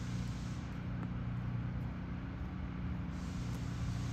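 A steady low hum of running machinery, even in level throughout.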